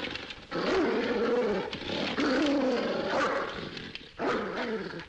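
Dog growling aggressively in a run of long, rough growls, with short breaks about half a second in and near the end.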